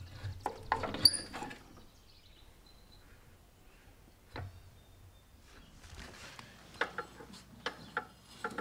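Scattered light clicks and knocks of metal parts being handled: a lawn tractor's mower deck rods and hanger pins. There is a short metallic ring about a second in and a cluster of clicks near the end.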